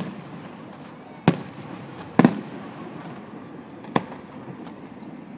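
Aerial fireworks shells bursting: a bang right at the start, then three more spread over the next four seconds, each followed by an echoing rumble.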